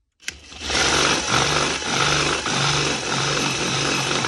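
Power drill running with a 5/16-inch bit worked around a hole in a plastic jar, reaming the hole slightly wider so a poultry nipple's threads can start. The drill spins up just after the start, runs steadily with its hum wavering a little, and stops at the end.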